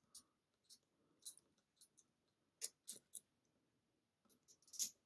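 Faint, irregular clicks of a lock pick lifting and scraping the custom pins of a pin-tumbler challenge lock held under tension, with a quick cluster of louder clicks near the end.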